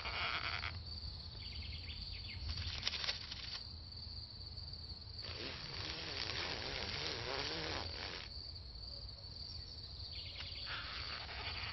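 Steady high-pitched insect trill, broken by several bursts of hissing noise; the longest burst is in the middle and lasts about three seconds.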